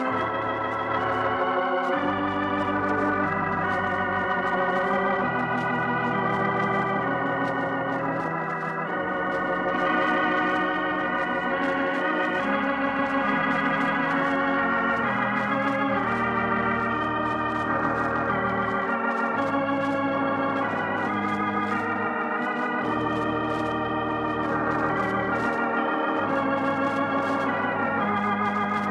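Organ playing the broadcast's closing music: slow sustained chords with vibrato over deep bass notes that change every couple of seconds.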